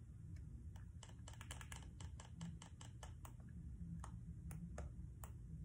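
Faint, irregular plastic clicks of fingers pressing buttons and handling the case of a handheld multifunction emergency crank radio, with a quick run of clicks about one and a half seconds in.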